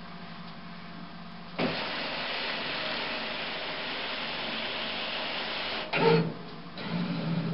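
HP DesignJet 750/755 plotter's paper-feed drive running steadily, advancing the newly loaded roll paper through the machine to check that it is square. It starts about a second and a half in, runs evenly for about four seconds, and stops with a short, louder knock.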